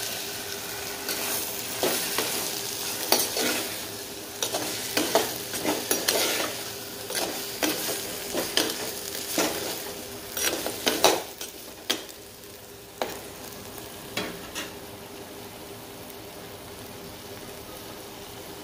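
A steel ladle stirring and scraping turkey berries, onion, tomato and garlic in an earthen pot as they sauté in hot sesame oil, with a sizzle under the clicks and scrapes. The stirring stops about 11 seconds in, leaving a quieter steady sizzle broken by a couple of single knocks.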